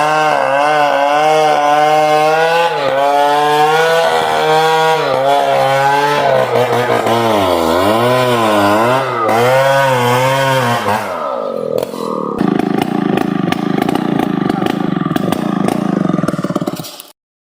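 Chainsaw cutting into an ironwood trunk, its engine pitch wavering up and down under load and dipping deeply partway through. About eleven seconds in the pitch slides down into a rougher, noisier running, and the sound cuts off suddenly near the end.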